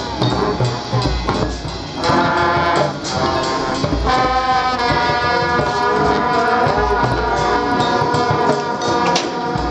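Marching band playing: the brass section holds long sustained chords, with low bass-drum hits underneath.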